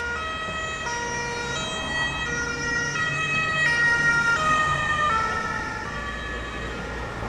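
Ambulance siren alternating between two tones over a low rumble of road noise. Around the middle its pitch shifts lower as the vehicle passes: the Doppler effect.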